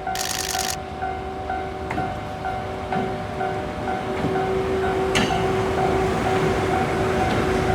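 Japanese level-crossing warning bell ringing in an even, repeating pattern of a little over two strikes a second, while the rumble of an approaching train grows louder toward the end. A brief high-pitched burst sounds just after the start.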